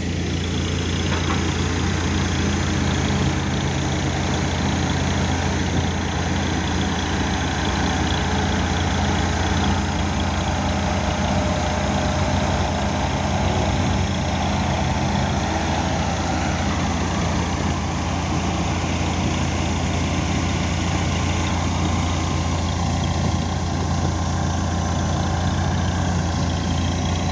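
An engine running steadily at a constant low pitch, with no change in speed.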